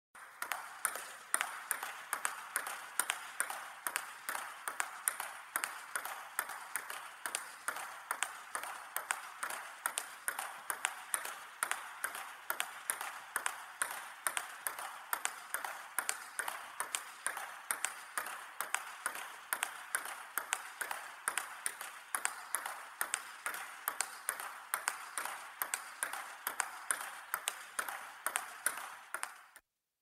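Ping-pong (table tennis) ball hits, sharp hollow clicks in quick succession at about three or four a second with uneven loudness. They stop just before the end.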